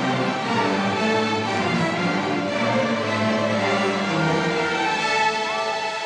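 A large string orchestra of violins and cellos bowing held notes together.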